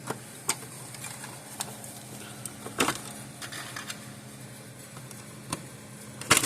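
Scattered small clicks and plastic snaps, about seven over several seconds, as the plastic catches on a fence energizer circuit board's spacers are pinched and pulled free, over a low steady hum.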